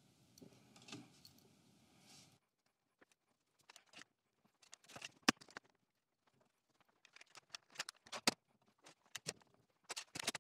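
Metal bar clamps being fitted and tightened across a glued MDF lamination: scattered light clicks and clacks of the clamp bars and sliding jaws, with two sharper clacks about five and eight seconds in.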